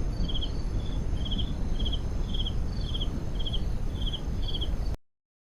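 Cricket-like insect chirping: short trills of a few quick pulses, repeating a little under twice a second, over a steady low rumbling background noise. The sound cuts off suddenly near the end.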